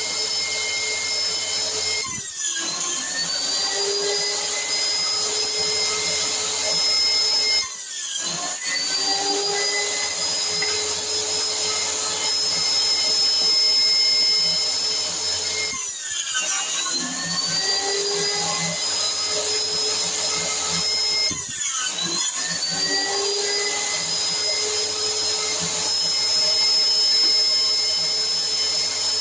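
Homemade combination jointer and table saw running with a steady motor tone; four times its pitch drops away sharply and climbs back to speed over a couple of seconds.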